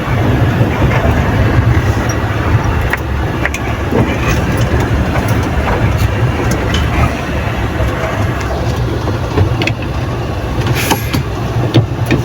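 Inside a dump truck's cab while driving: the engine runs with a steady low rumble, and short rattles and knocks from the cab and body come through it.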